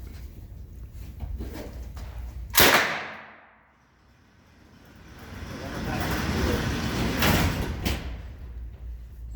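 A 9mm Uzi submachine gun fires about two and a half seconds in: one sharp, very loud crack that rings off over about half a second, followed by low rumbling background noise.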